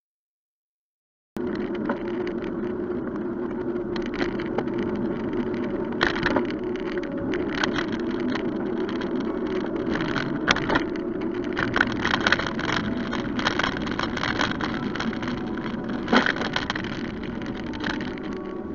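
Silent for about the first second and a half, then the steady rumble and wind noise of a bicycle rolling along a road, picked up by a bike-mounted camera, with frequent irregular rattles and knocks as it jolts over the surface.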